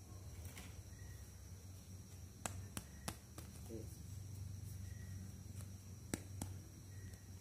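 Light clicks of a plastic toy hair comb being picked up and handled: three sharp clicks a little before halfway and two more near the end, over a steady low hum.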